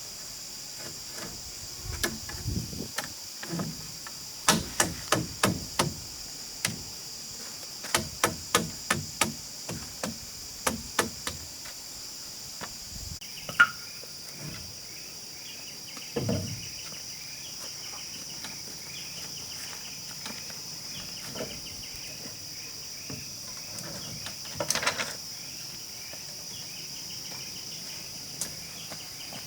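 Runs of quick, sharp strikes of a tool on wood, about three a second in bursts of four to six, over a steady high insect drone. The strikes thin out after about twelve seconds, leaving the insects, repeated short chirps and a few scattered knocks.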